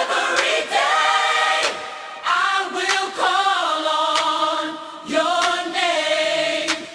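Gospel choir singing unaccompanied, several voices holding harmonies in short phrases that swell and fade, with no instruments or bass underneath.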